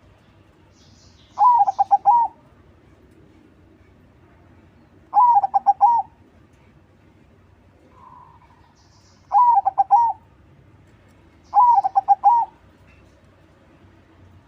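Crossbred zebra dove (perkutut crossing) singing its cooing song four times, each phrase a quick run of four or five notes lasting under a second, repeated every two to four seconds.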